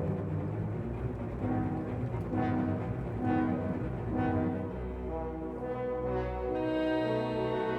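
Orchestral music with brass: short repeated horn notes about once a second over a low drone, moving into held chords about two-thirds of the way through.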